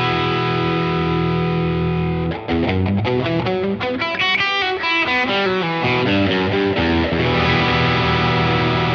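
Overdriven electric guitar with a delay effect: a 1996 Fender American Stratocaster with noiseless pickups, played through overdrive pedals and a 40 W combo amp into a Universal Audio OX Box factory delay preset. A held chord rings, then a quick run of single notes starts about two and a half seconds in, and it settles on another sustained chord near the end.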